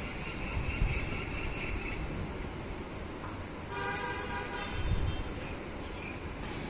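Insects chirping in a steady, regular high pulse over a soft outdoor hiss during a light drizzle. A brief pitched call sounds about four seconds in.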